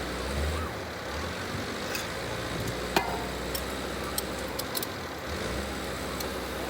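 Engine running steadily with a low hum, with a few sharp metallic clicks, the loudest about three seconds in.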